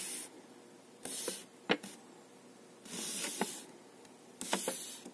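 A folded paper warranty leaflet being unfolded and handled: four short rustles, about a second apart, with a few sharp paper crackles.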